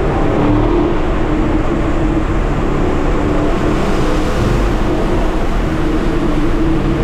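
Chevrolet Camaro SS 1LE's 6.2-litre LT1 V8 running at a fairly steady pitch on the move, with road noise underneath.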